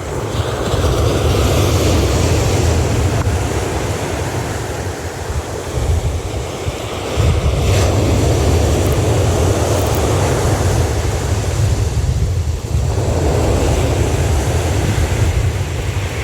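Waves breaking and washing on a beach, swelling and fading twice, with wind buffeting the microphone as a steady low rumble.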